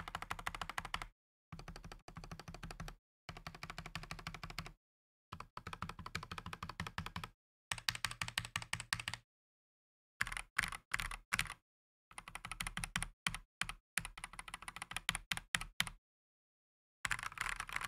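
Typing on a stock Redragon K668 full-size mechanical keyboard with its red switches and thin shine-through keycaps. Rapid keystrokes come in runs of a second or two, broken by short silent gaps. The sound is clacky in a bad way, hollow and inconsistent.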